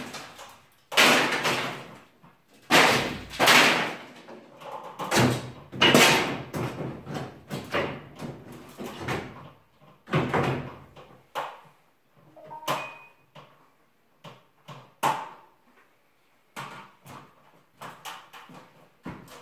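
Ceiling demolition: a string of heavy bangs and crashes as wooden ceiling boards and battens are knocked down, with the clatter of falling pieces. The biggest crashes come in the first half, then lighter, scattered knocks.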